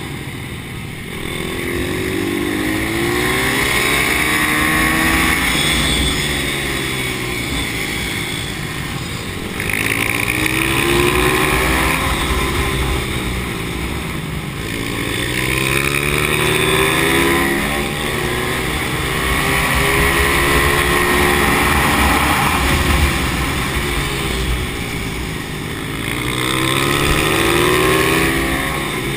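Pit bike engine heard from on board, revving up hard and dropping back over and over as it accelerates out of corners, shifts and slows into the next bend.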